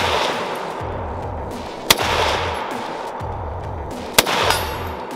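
Two shots from a .308 M1A SOCOM 16 semi-automatic rifle in an EBR chassis, the first about two seconds in and the second about two seconds later, each followed by a fading echo.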